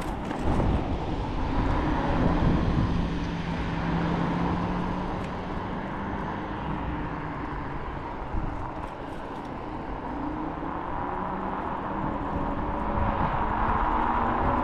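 Kaabo Wolf King GT electric scooter riding at speed: wind rushing over the chest-mounted camera and tyre and road noise, with a faint hum from its dual hub motors that drifts in pitch and rises near the end.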